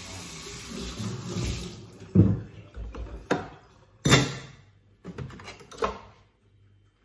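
Kitchen tap running with a steady hiss that stops about two seconds in. It is followed by five sharp knocks and clatters of dishes and utensils handled at the sink and counter.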